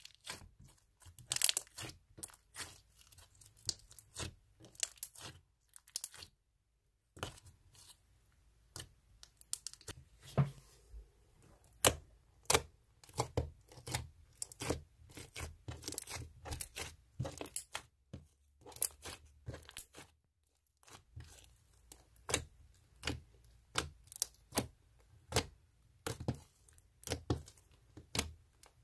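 Slime being squeezed and poked by hand, giving irregular sharp pops and crackles, one to three a second, with a couple of short pauses.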